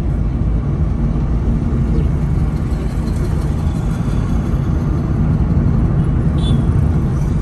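A moving car's road and engine noise heard from inside the cabin: a steady low rumble with no distinct events.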